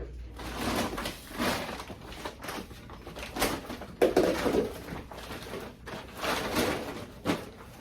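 Irregular bursts of rustling and knocking: handling noise as a boa constrictor is worked out of its enclosure with a snake hook.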